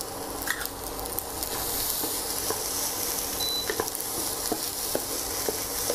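Fried rice sizzling in a nonstick pan while it is stirred and turned with a wooden spatula, with scattered light scrapes and taps of the spatula on the pan. The sizzle grows stronger after about a second and a half.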